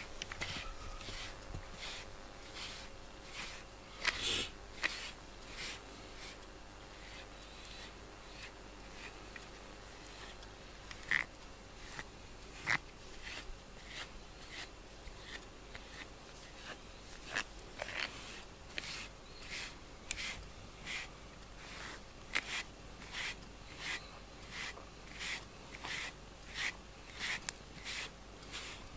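Grooming brush stroking through a cat's fur, a soft swish repeated about once or twice a second, with a few sharper clicks along the way.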